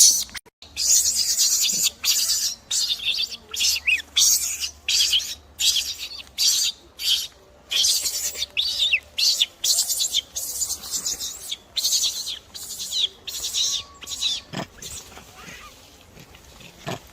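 A rapid run of short, high-pitched animal squeaks and chirps, several a second, thinning out near the end.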